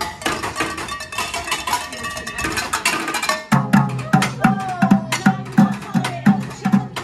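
Upbeat show music with percussion. About halfway through, a steady drum beat comes in at about three beats a second.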